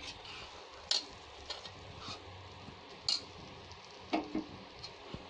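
Steel spatula scraping and knocking against an iron kadhai while a thick mawa-and-sugar mixture is stirred. There are a few sharp scrapes, the loudest about one, three and four seconds in, over a faint steady hiss.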